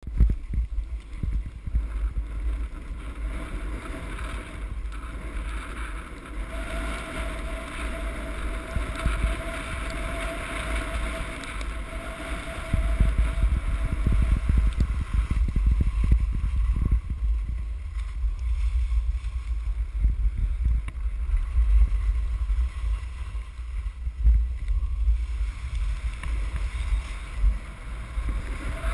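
Wind buffeting the microphone of a camera carried down a ski slope, a heavy gusting rumble, with the scraping hiss of sliding on packed snow beneath it. Both get louder about halfway through as the descent speeds up.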